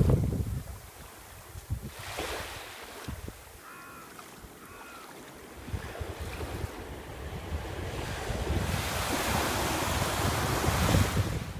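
Shallow sea waves lapping and washing up over a sandy shore, with wind rumbling on the microphone at first. A wave breaks close in and washes up louder near the end.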